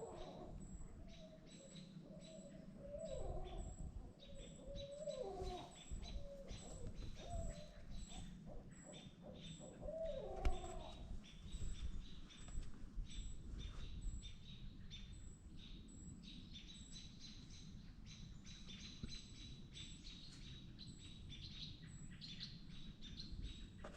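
Barred owls calling with wavering, rising and falling hoots for the first ten seconds or so, while small birds keep up rapid, repeated high chips throughout, agitated by the owls.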